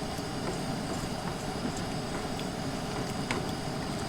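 A large pot of chili cooking over a burner: a steady hissing rumble, with a few faint light clicks.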